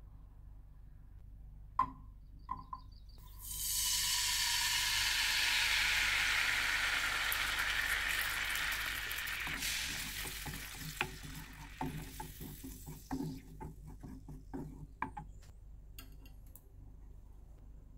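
Hot olive oil in a frying pan sizzling loudly as tomato sauce goes in, starting with a sudden hiss about three and a half seconds in and dying away gradually over the next several seconds. A wooden spoon knocks and scrapes in the pan as the sauce is stirred, with two short sharp sounds just before the sizzle.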